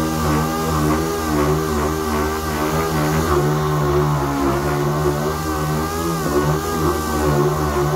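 Air-powered random-orbital sander running against a metal bus panel, sanding down dried body filler. It makes a steady whine whose pitch wavers as the pad is pushed and moved over the surface.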